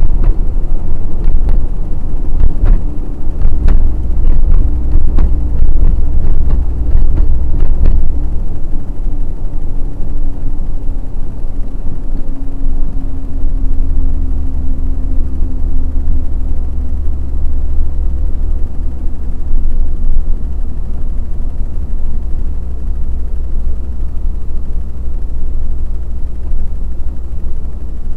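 A truck driving along a highway, heard from inside the cab: a steady, loud low rumble of engine and road noise with a faint drifting hum. A run of sharp clicks or knocks sounds over the first several seconds, then stops.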